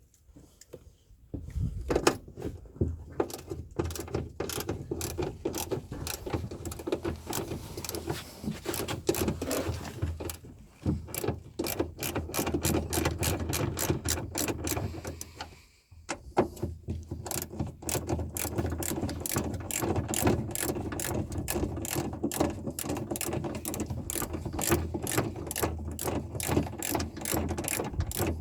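Hand ratchet wrench with a 10 mm socket clicking in repeated strokes as a fastener is turned, with short pauses, then an even run of about four clicks a second.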